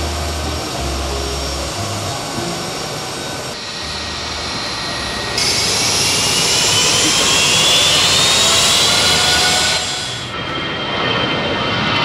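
Jet airliner engine noise, interrupted by abrupt edits. About five seconds in, a louder turbofan whine rises steadily in pitch for about four seconds as the engine spools up, then cuts off.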